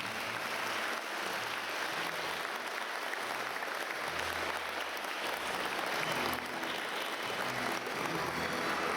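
Audience applauding: a steady, dense clapping that goes on without a break.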